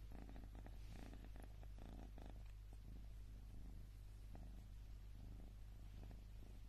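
Pixie-bob kitten purring faintly in a pulsing rhythm while being scratched under the chin, strongest in the first couple of seconds, then coming and going in shorter spells.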